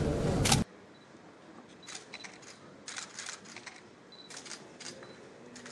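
Camera shutters clicking in short clusters of a few clicks each, over a quiet room. A loud rushing noise at the start cuts off abruptly under a second in.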